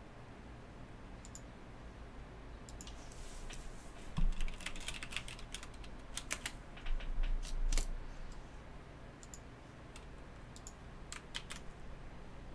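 Computer keyboard keys clicking in irregular bursts, busiest from about three to eight seconds in and again near the end. Dull low thumps come about four seconds in and again around seven to eight seconds in, the loudest sounds here.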